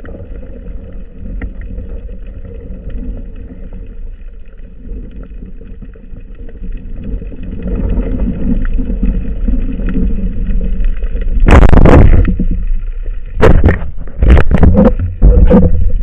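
Muffled underwater noise, a low steady rumble that grows louder, then loud rushing water bursts about two-thirds of the way in and again several times near the end.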